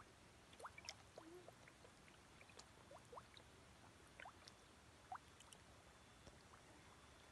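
Faint, scattered small plops and slurps at the water surface as koi gulp floating feed pellets, each a quick watery blip at irregular moments.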